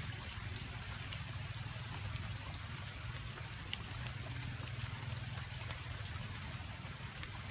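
Steady patter of light rain or dripping water, with scattered small ticks of drops, over a steady low hum.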